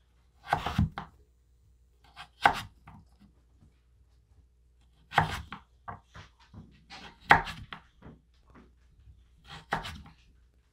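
An 8-inch Victorinox chef's knife slicing through raw butternut squash and striking a wooden cutting board: a sharp chop about every two seconds, with lighter taps and knife scrapes between.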